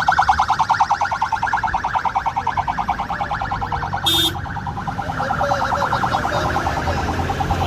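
Vehicle siren warbling rapidly, about ten pulses a second, weakening after about three seconds, over the low rumble of convoy vehicle engines.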